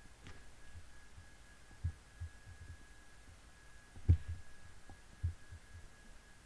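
A few faint, low, muffled thumps at uneven intervals, the loudest about four seconds in, over a faint steady high-pitched whine.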